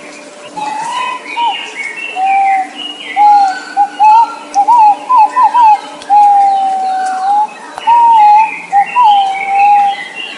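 Green pigeon (nok pao) giving its whistled song: a string of fluting notes, some wavering quickly up and down and one long steady note in the middle, starting about half a second in and ending near the end. Fainter higher chirps of other small birds sound above it.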